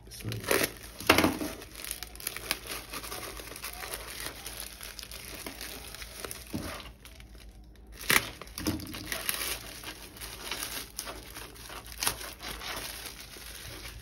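Plastic courier mailer bag crinkling and tearing as it is slit open with a snap-off utility knife and pulled apart by hand: irregular rustling and crackling, loudest about a second in and again about eight seconds in.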